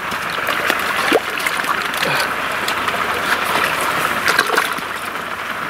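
Shallow water splashing and sloshing as a large sturgeon thrashes at the surface beside a floating landing sling, with repeated short splashes.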